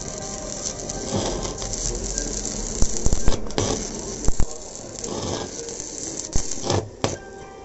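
Stick (arc) welding: the electrode crackling and sizzling steadily as it lays a bead on square steel tubing, with scattered sharp pops.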